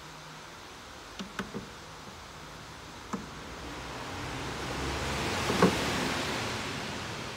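A few small clicks and a knock from hands working a plastic windshield-washer hose loose, followed by a hiss that swells and fades over about three seconds.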